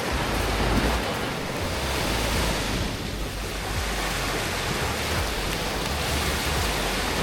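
Steady rush of water, with a low uneven rumble of wind on the microphone.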